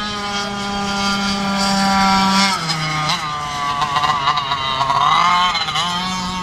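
Racing kart engines passing at high revs, the high-pitched engine note holding and rising, dropping suddenly about two and a half seconds in, then rising and falling again as they work through the course.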